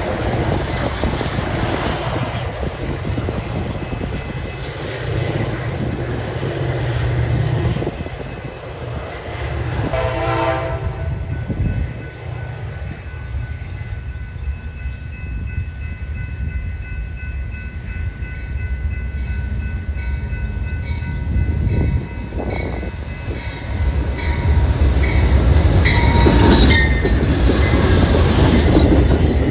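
A passing train's wheels rumble and clatter on the rails, with a short horn blast about ten seconds in. The rumble grows louder again near the end.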